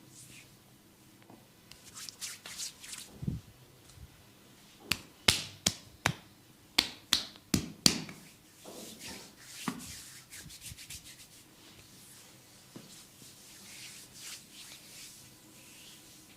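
Massage hand sounds: hands rubbing on skin, with a quick run of about seven sharp hand strikes in the middle.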